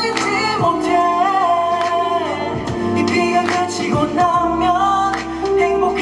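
Pop song performed live: a voice sings a melody over instrumental backing.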